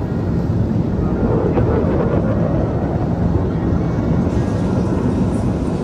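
Steady rumble of military display jets' engines overhead as the formation splits apart trailing smoke.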